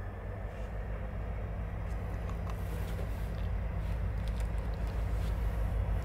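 Freight train's diesel locomotives approaching, a low steady engine rumble that grows gradually louder.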